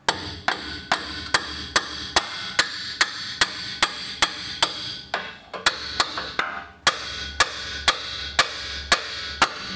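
Background music with a steady, sharp knocking beat, about two and a half beats a second, over sustained tones. The beat pauses briefly about five seconds in and again near seven seconds.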